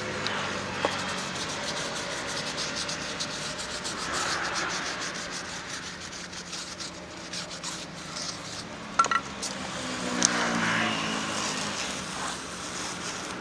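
Repeated rubbing and scraping from hand work on a scooter wheel and tyre, with a couple of sharp clicks about nine seconds in.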